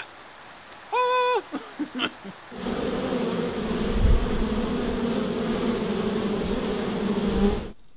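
A brief held tone about a second in, then a dense, steady buzzing of many honey bees at a hive entrance, which cuts off suddenly near the end.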